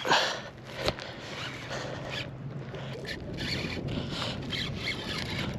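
Baitcasting reel ticking rapidly and continuously while a hooked fish is fought on the line, with a sharper click a little under a second in.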